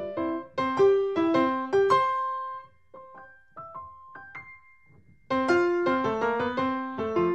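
Background piano music. It thins to a few soft notes for a couple of seconds in the middle, then comes back fuller and louder.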